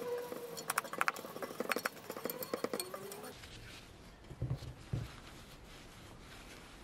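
Loose paint flakes being brushed and scraped off a metal bicycle frame tube: a quick run of sharp clicks and clinks, then a cloth rubbing along the frame with two dull thumps a little over halfway through.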